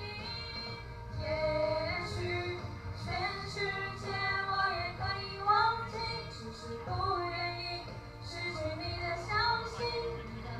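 Two teenage girls singing a pop song into handheld microphones, amplified through a hall's PA over accompaniment music.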